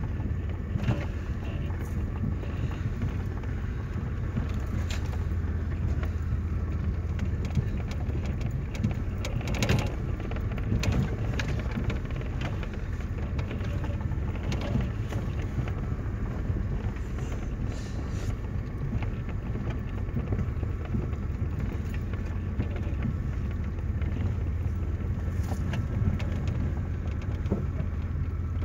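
Vehicle engine and tyres heard from inside the cab while driving on a sandy dirt track: a steady low drone with occasional knocks and rattles.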